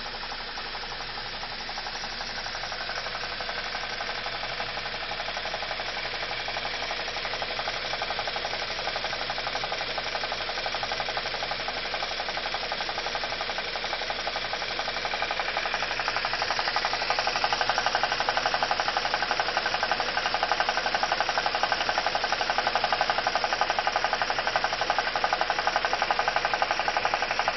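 BMW E46 316i's N42 four-cylinder petrol engine running with a fast, even ticking clatter that gets louder through the second half. The owner calls it a strange noise and does not know its cause.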